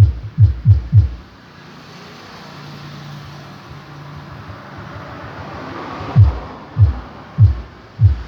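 Dance remix played loud through a sound system's bass speaker boxes: deep kick-drum thumps, about three a second, stop after a second. A rising noise sweep builds up over the next few seconds. The kicks come back about six seconds in, more slowly, roughly every 0.6 s.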